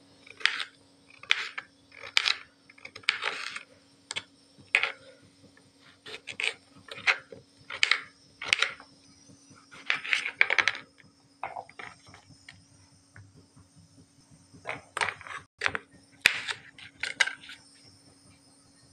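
Kitchen knife cutting through boiled beetroot on a cutting board: irregular sharp clicks and taps of the blade meeting the board, some in quick runs and some spaced out, over a faint steady hum.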